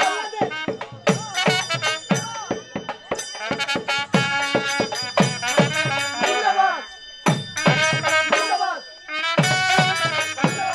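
Folk band accompanying a lathi khela stick dance: a dhol drum beating a quick, steady rhythm under a trumpet playing a wavering melody. The music stops briefly a few times and picks up again.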